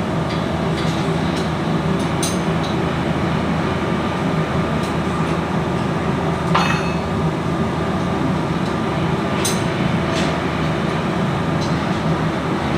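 Steady low mechanical hum of machinery running, with a few sharp metal clinks scattered through it.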